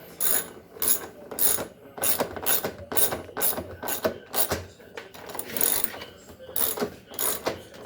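Ratchet wrench clicking in repeated short strokes, roughly two a second, as a bolt is run in and tightened while fitting a damper shock on a Samsung front-load washer.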